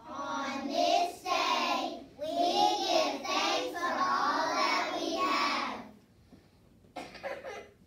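A group of young children singing together in a few held phrases, breaking off about six seconds in.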